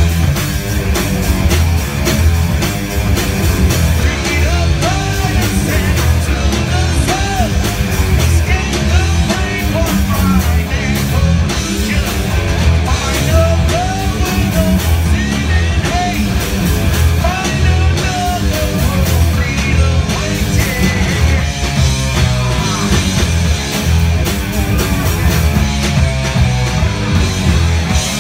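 Live rock band playing loud, heavy rock: two electric guitars through Marshall amplifiers, bass guitar and a drum kit, with a singer's voice on top.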